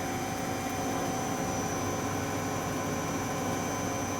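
1985 Mori Seiki SL-4T CNC lathe running a program with its spindle at about 700 RPM, a steady machine whir with a constant high whine. It runs very quietly, a sign of a mechanically sound machine.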